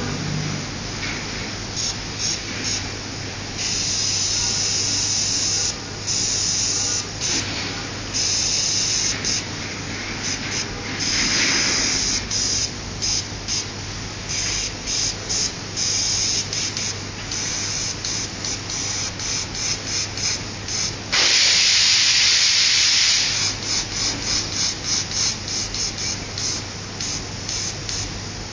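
Airbrush spraying in repeated on-off bursts of hiss, with one longer spray of about two seconds a little past the middle and a run of quick short bursts near the end, over a steady low hum.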